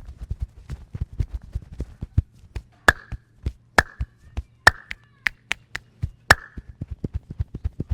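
A masseur's hands striking the body in a fast percussive massage: rapid dull chopping pats, several a second. These give way to a handful of louder, sharp slaps or claps, roughly one a second, before the quick pats resume near the end.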